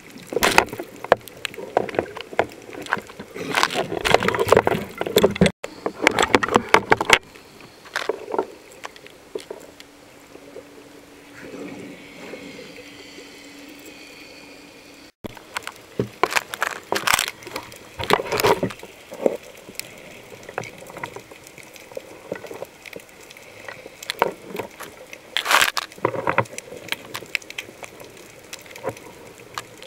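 Water sloshing and bubbling around a camera held underwater, coming in irregular bursts, with a quieter stretch of several seconds midway.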